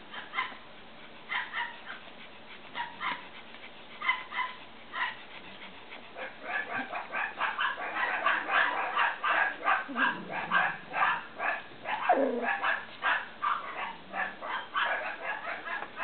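Cavalier King Charles Spaniel puppies yipping. There are a few short yips at first, then from about six seconds in a fast, steady run of high yips, several a second, with one falling whine about twelve seconds in.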